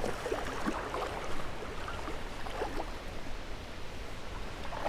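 Creek water running over small rapids: a steady rush with scattered short gurgles.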